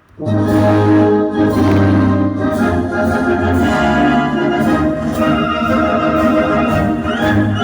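Music with brass and a heavy bass line kicking in abruptly just after the start, played loud through an OHM TRS PA system of 2×18 subwoofers and 2×12 tops.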